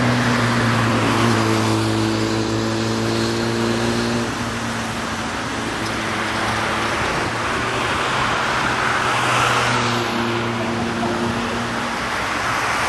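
A line of cars driving past one after another, their tyre and engine noise swelling and fading as each goes by. A steady engine drone runs underneath for the first few seconds and again about ten seconds in.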